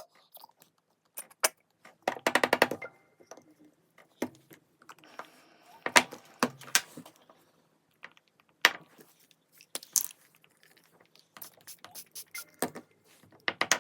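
Small objects being handled: scattered sharp clicks and knocks, with a quick rattle about two seconds in and several louder single knocks later.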